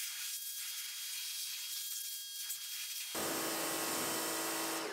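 Pressure washer spraying water, a steady hiss. About three seconds in it changes suddenly to a louder, steadier spray with a low hum.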